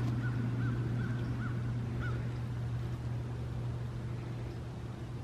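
A bird calling in a run of short, arching notes repeated a few times a second for the first two seconds, over a steady low hum.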